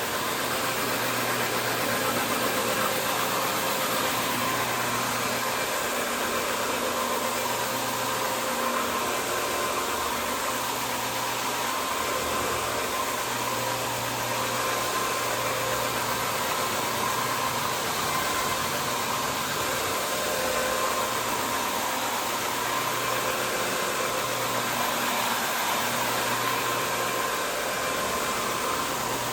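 Carpet-cleaning equipment running with a steady motor whir and hiss, and a low hum that cuts in and out every couple of seconds.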